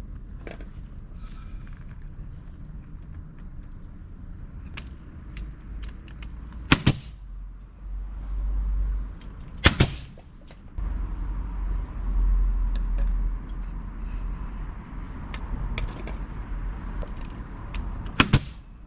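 Three sharp knocks, each a quick double strike, about seven, ten and eighteen seconds in, over a steady low rumble.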